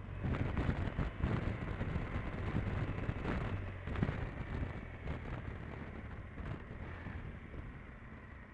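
Motorcycle engine running as the bike rides along, with wind buffeting the microphone; the sound eases off near the end.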